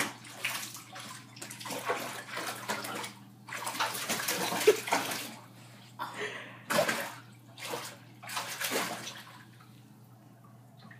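Water splashing and sloshing in a jetted tub as a child moves about in it, a run of irregular splashes loudest about five and seven seconds in, dying away near the end. A steady low hum runs underneath.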